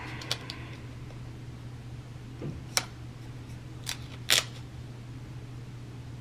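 A few soft taps and clicks from fingers peeling and pressing a paper sticker onto a planner page, the loudest about four seconds in, over a steady low hum.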